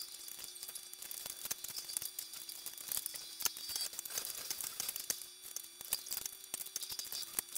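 Sped-up sound of someone handling Lego pieces and camera gear: a fast, irregular clatter of small clicks and ticks over a hiss, with a faint steady hum underneath.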